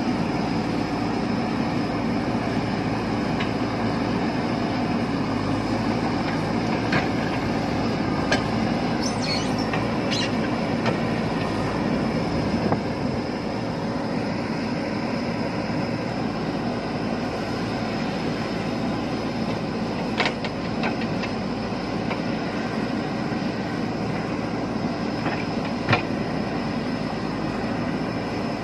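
JCB 3DX backhoe loader's diesel engine running steadily under load as the backhoe arm digs earth, with a few sharp clanks from the arm and bucket.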